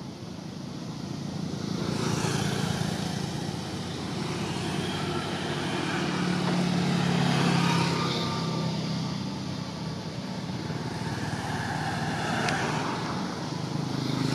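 Motor vehicles passing on a road: engine hum and tyre noise swell and fade as they go by, loudest about two seconds in, again in the middle, and near the end.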